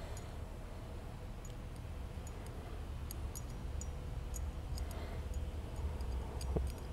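Faint, irregular small metal clicks and ticks as tiny screws are worked and started into a steel router bit body to fasten a carbide insert knife, with a sharper click near the end. A low steady hum runs underneath.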